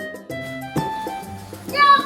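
Upbeat background music with held notes and a repeating bass line, and a short vocal phrase near the end.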